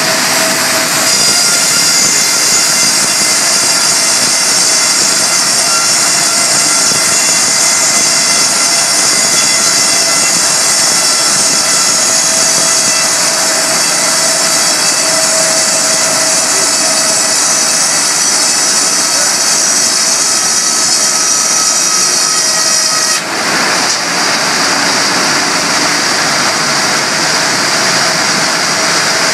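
Big sawmill bandsaw cutting a huge slab off a log: a loud, steady mechanical run with a high whistling whine over a dense hiss. The whine drops out suddenly about two-thirds of the way through while the noise carries on.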